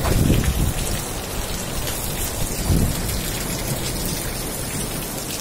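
Heavy rain mixed with hailstones pelting down, a dense, steady clatter of drops and stones striking surfaces. A deep rumble comes at the start and again about three seconds in.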